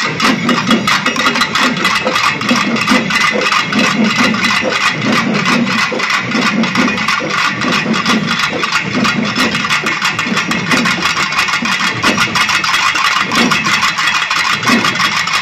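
A large ensemble of pambai drums, paired cylindrical Tamil folk drums struck with sticks, played together in a fast, dense, unbroken stream of strokes.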